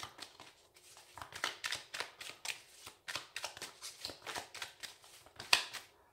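A deck of oracle cards shuffled by hand: an uneven run of quick card clicks and slaps, the loudest one a little before the end.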